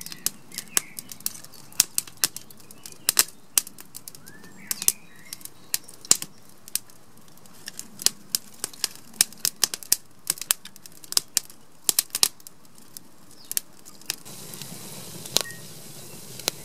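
Small wood fire of split kindling sticks crackling, with many irregular sharp pops; a soft steady hiss joins near the end. A few faint bird chirps in the background.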